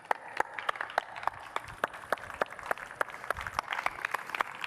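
A small audience applauding, the separate hand claps heard distinctly rather than merging into a wash.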